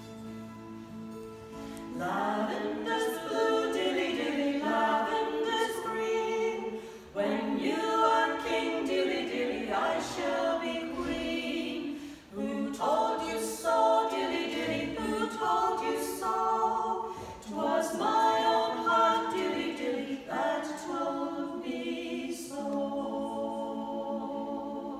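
A small group of women singing a song together in harmony, phrase by phrase, accompanied by an acoustic guitar.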